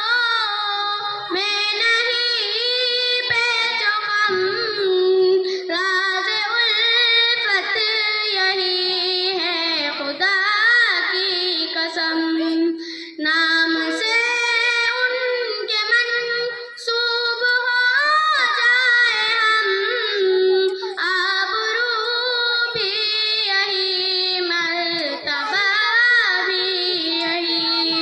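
A young girl singing an Urdu naat unaccompanied, in long phrases with ornamented glides between notes.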